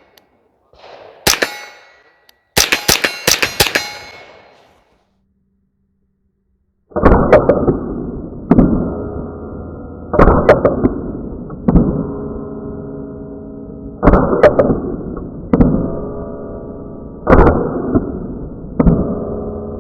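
Rock Island Armory TM22 .22 LR semi-automatic rifle firing: a couple of single shots, then a quick string of about half a dozen. After a pause of a few seconds come slower shots, each followed by the long ringing of a struck steel target.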